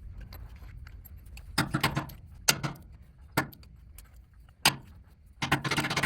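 Metal hand tools clinking and knocking against a spark plug in a tractor engine: a handful of sharp clinks at irregular moments, busier near the end. The plug is stuck and won't come out.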